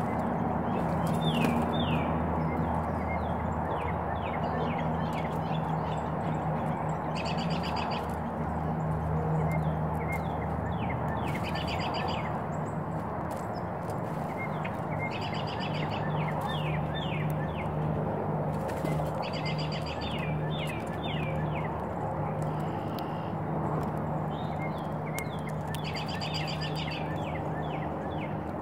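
Small songbirds calling: many short down-slurred chirps, and a quick trilled phrase repeated about every four seconds. Under them is a steady low hum.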